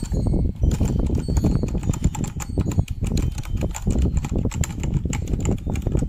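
Fast typing on an EGA TYPE CMK1 mechanical keyboard: a dense, continuous clatter of key strokes.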